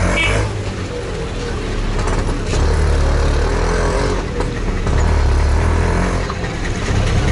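Auto-rickshaw engine running as the three-wheeler drives off, heard from inside its open cabin, its low note swelling and easing a few times over road and wind noise.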